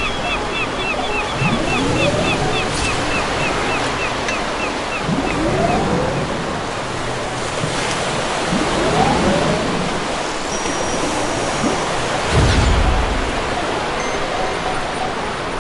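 Ocean surf washing steadily, with a quick run of high chirps, about three a second, over the first five seconds and three slow rising swoops. A deep thump comes about twelve seconds in.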